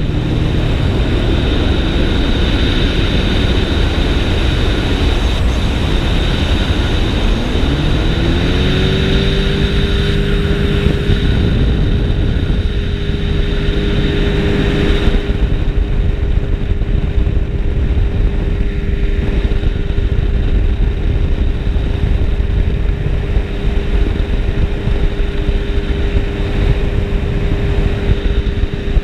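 Dragonfly ultralight's engine and propeller running, with air rushing past the open seat. About eight seconds in the engine's pitch rises as power comes up, then holds steady.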